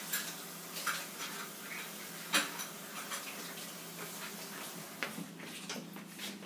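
Paintbrush clicking, tapping and scraping in the pans of a plastic watercolour paint tray, a series of light irregular knocks with one louder clack about two and a half seconds in, over a faint steady hum.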